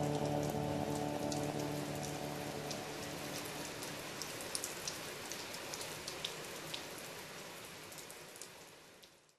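Music dying away in the first couple of seconds, leaving a steady hiss of falling rain with scattered sharp drop ticks that fades gradually and cuts off just before the end.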